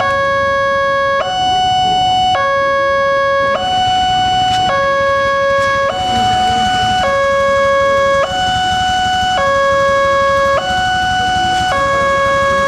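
Railway level-crossing alarm sounding its two-tone electronic warning, switching between a lower and a higher tone about every 1.2 seconds. The barrier is down and the alarm signals an approaching train.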